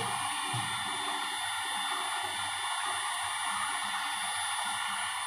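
Electric heat gun running steadily, its fan blowing a hot-air rush with a thin high whine.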